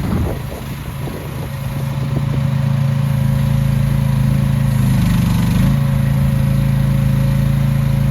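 CFG Industries H15R mini excavator's small engine running at a steady speed. It firms up over the first couple of seconds and wavers briefly about five seconds in.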